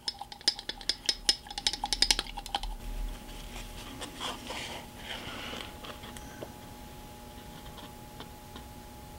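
Light clicking and clattering of small hobby objects being handled, a glass paint-thinner bottle among them: a quick run of clicks in the first few seconds, then only faint scattered taps and scraping over a faint steady hum.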